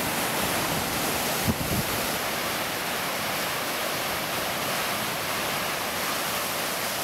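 Steady rush of breaking lake waves, with wind on the microphone. There is a brief low thump about a second and a half in.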